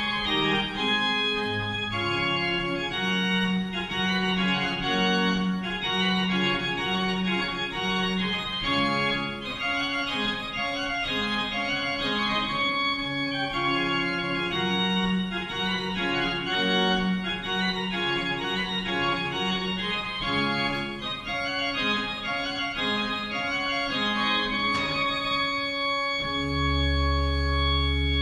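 An 18th-century pipe organ, newly restored, is played: a piece of many held notes moving stepwise over a steady lower line. In the last couple of seconds it settles on a long held chord with a deep bass note.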